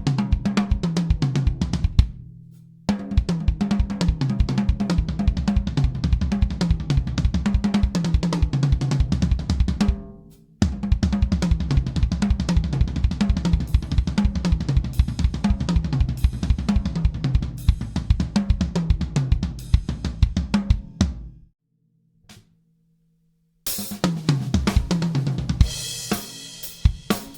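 Sonor Prolite drum kit played in fast fills, with repeated runs of strokes stepping down in pitch across the toms over the bass drum. These break off twice, then stop for about two seconds. Near the end, a cymbal crash rings out before single strokes resume.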